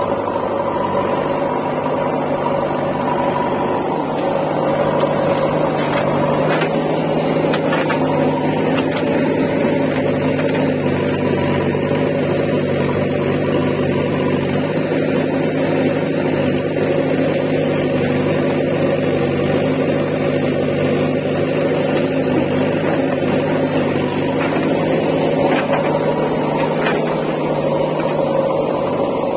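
Diesel engine of a JCB 3DX backhoe loader running steadily at a constant speed while the backhoe digs, with a few faint knocks.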